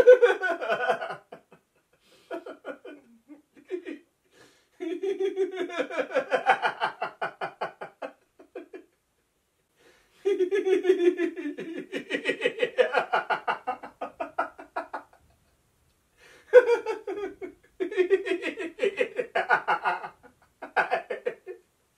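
A man and a woman laughing together in a laughter yoga exercise: about five bouts of hearty laughter with short silent pauses between them.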